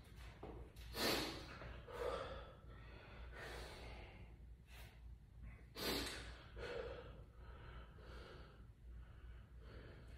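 A man breathing hard from exertion: a string of short, sharp breaths about a second apart, faint.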